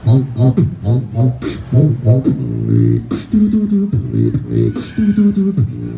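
Street beatboxer performing into a handheld microphone, amplified: fast rhythmic mouth percussion woven with hummed and sung bass tones that slide in pitch.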